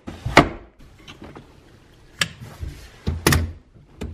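Tesla Model S rear-facing jump seats being raised and latched into place: a series of about four sharp clunks and clicks, the loudest about three seconds in.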